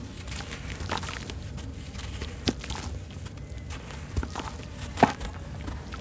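Wet sand-cement lumps crushed and crumbled by hand over a basin of water: irregular soft crunches and gritty crackles, with one louder crunch about five seconds in.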